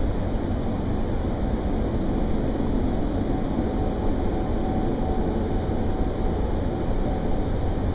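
Deep, constant rumbling drone of unknown origin heard from the sky, steady with no rise or fall, strong enough to be felt as vibration; it was first taken for a plane but does not pass. A faint thin tone sits on top of it for a few seconds in the middle.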